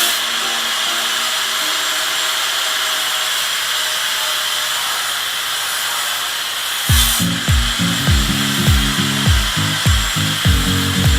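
A power tool running steadily with a continuous gritty hiss, typical of abrasive or wire-brush work on metal during a saw restoration. About seven seconds in, background music with a steady beat comes in over it.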